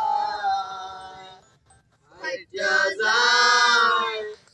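A group of young men singing a Bengali song together with no instruments. A long held note fades out, and after a short pause the next line starts with another loud held note.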